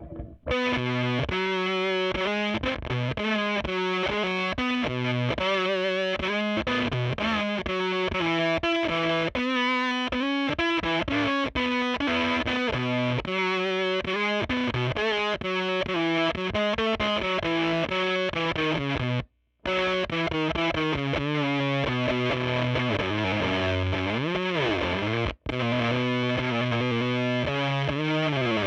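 Electric guitar played through a Jext Telez Dizzy Tone V7 germanium fuzz pedal with Mullard OC81Z and GET113 transistors: a run of distorted, fuzzy notes, with a bent note near the end. The sound cuts out abruptly twice for a moment.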